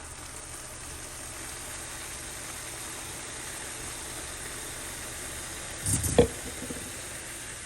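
Beans and blended tomato mix sizzling steadily in hot oil in a pot, with one brief loud knock about six seconds in.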